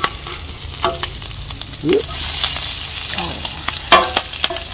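Bacon sizzling in a hot pan, with the clicks and scrapes of a utensil as the strips are turned. The sizzle grows louder about two seconds in.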